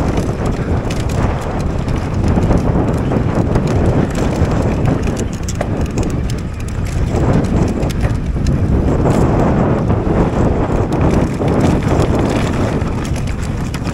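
Wind buffeting an action camera's microphone during a fast mountain bike descent, with the tyres running over dirt and the bike rattling over bumps in many sharp clicks. It eases briefly about six and a half seconds in, then builds again.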